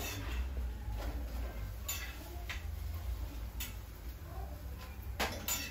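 A few light, sharp clicks and taps, spaced unevenly, as chapatis are lifted and turned with a metal spatula on a griddle over a gas burner. A faint steady low hum runs underneath.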